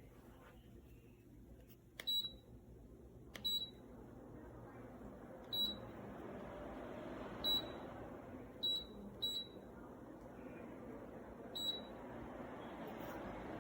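Dreo Cruiser Pro tower fan beeping seven times, each a short high beep at uneven intervals as its controls are pressed. Meanwhile the fan's rush of air grows steadily louder.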